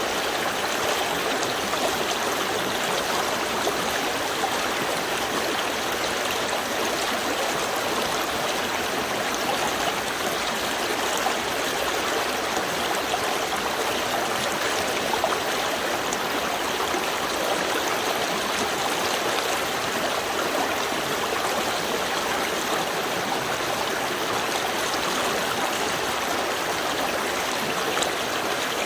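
A small river stream flowing steadily, water running and splashing over stones with a constant rushing sound and small trickles.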